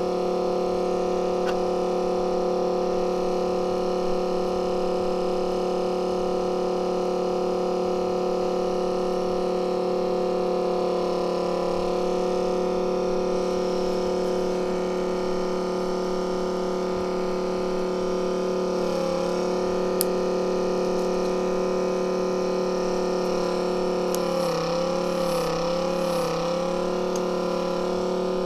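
Steady machine hum made of several held tones. Its pitch wobbles briefly about two-thirds of the way in, and again a few times near the end.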